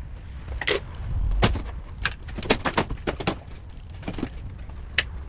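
Irregular metal clicks and knocks, about one or two a second, from hand tools working the last rusted bolt on a pickup's front bumper, over a low rumble.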